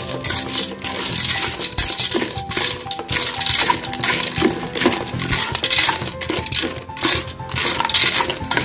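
Dry elbow macaroni stirred with corned beef in an aluminium pot: the hard pasta pieces clatter and rattle against the metal in repeated strokes of the spatula. Background music plays underneath.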